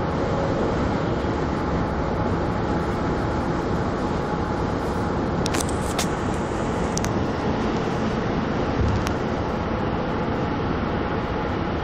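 Steady road and engine noise heard inside a car's cabin while driving at highway speed, with a few short clicks around the middle.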